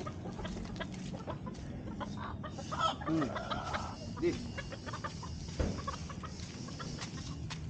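Roosters clucking, with a few short calls about three to four seconds in, among scattered small clicks and knocks.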